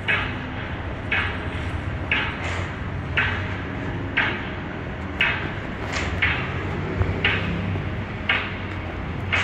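Footsteps on a concrete sidewalk, a regular step about once a second with softer ones between, over a steady low hum of city street traffic.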